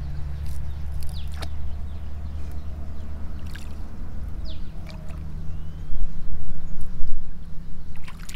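Shallow water sloshing around a large fish held in a landing net, over a steady low rumble. A few short high chirps come through, and the sloshing grows louder and more uneven about six seconds in.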